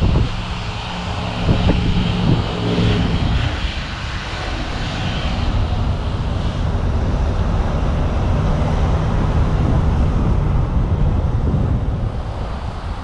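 Diesel engine of a garbage truck, a Cummins ISL inline-six, idling as a steady low hum, clearest in the first few seconds, with wind rumbling on the microphone.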